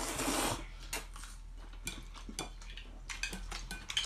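Chopsticks clicking and scraping against a ceramic noodle bowl while eating, a string of light clinks that grows busier in the second half, after a short burst of noise at the start.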